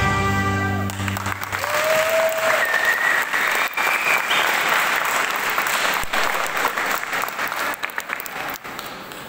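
Dance music ends about a second in, and an audience applauds in a large hall; the applause fades out near the end.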